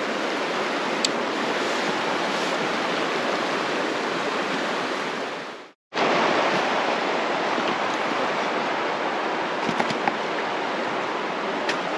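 Mountain river rushing over rapids, a steady even roar of water. It cuts out briefly about halfway through, then comes straight back.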